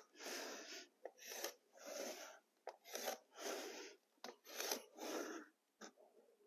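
A pencil and a scribe board offcut sliding along a vinyl plank in a series of faint short rasping strokes, a little more than one a second, marking the plank's cut line against the wall.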